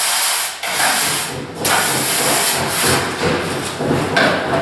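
Hissing in several long strokes, a second or so each, as the side of an aluminium corner screed is wetted. The wetting is done so the screed will come off the gypsum plaster easily when it is pulled later.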